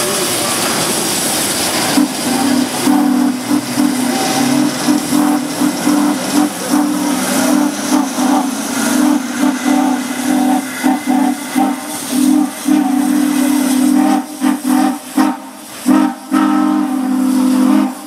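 Steam whistle of 2-8-0 steam locomotive #734 blowing a long, steady chord over hissing steam. The whistle starts about two seconds in and breaks into shorter, choppy blasts near the end.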